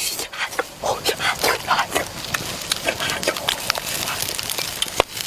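Close-up eating sounds: irregular wet smacking, chewing and slurping clicks.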